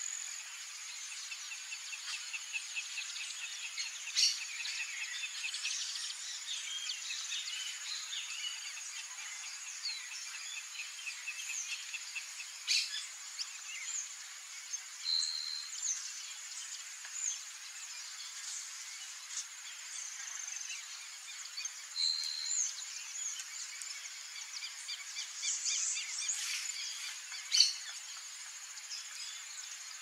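Steady high-pitched insect buzz with scattered bird chirps and whistled calls, a rapid trill a few seconds in, and a few sharp taps, the loudest near the end.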